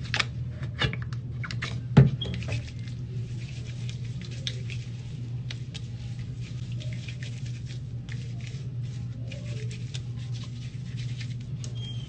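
Close-miked eating sounds: chewing with many small, irregular wet mouth clicks and smacks, one sharper click about two seconds in, over a steady low hum.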